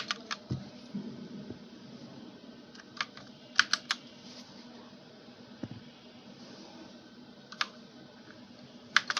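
Keys pressed on a PC Power K87 mechanical keyboard with Red linear switches: scattered keystroke clicks, some single and some in quick clusters of two or three, as it is switched through its RGB lighting effects.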